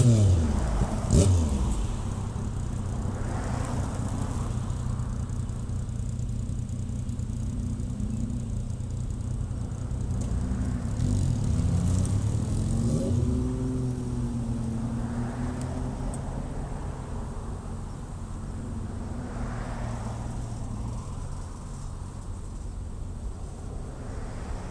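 Road traffic: a vehicle passes with its engine note falling in pitch right at the start, another goes by about twelve seconds in, over a steady low engine hum.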